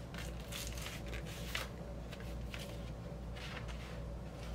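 Cardboard and paper rustling and sliding as a vinyl LP jacket is handled and its printed paper inner sleeve drawn out: several short scrapes over a steady low hum.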